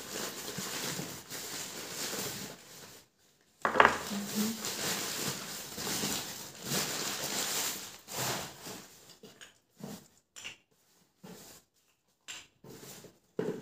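Newspaper packing rustling as it is pulled off clay pottery, with a sharp knock of terracotta a little under four seconds in; later the rustling breaks into a handful of short separate knocks and crinkles.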